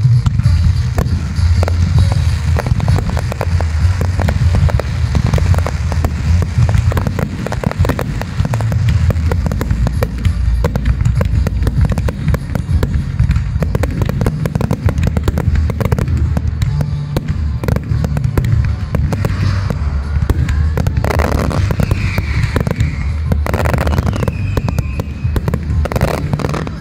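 Dense fireworks barrage: a continuous run of bangs and crackling over deep booming shell bursts, with a few whistling tones near the end. It cuts off suddenly at the end.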